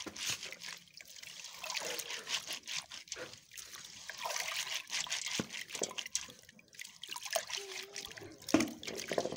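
Water trickling and sloshing as crushed corn is washed by hand in water to float off the chaff, with scattered light clicks.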